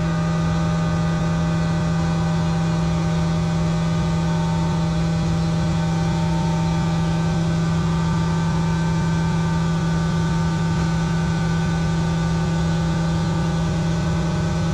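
A steady machine hum at one constant pitch, starting abruptly and running unchanged at an even level.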